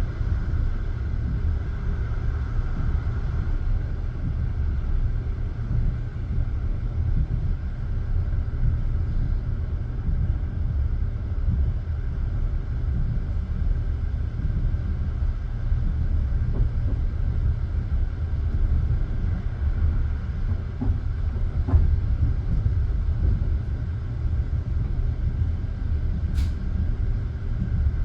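Passenger train carriage running, a steady low rumble of wheels and undercarriage heard from inside the car. A brief high-pitched squeak comes near the end.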